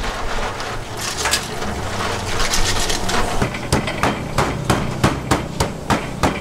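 Tap water running into a steel sink while clams are rinsed in a plastic basin; about three and a half seconds in, a cleaver starts striking lemongrass stalks on a wooden chopping block, sharp blows at about three a second.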